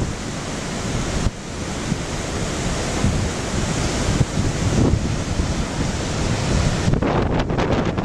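Hurricane-driven storm surf breaking and churning continuously on a rocky, boulder-strewn shore. Strong gusty wind buffets the microphone with low rumbles.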